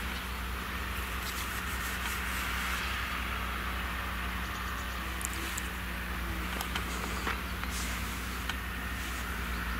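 Steyr 9094 tractor's diesel engine running steadily under load while it pulls a three-furrow reversible plough through the soil, with a few faint clicks.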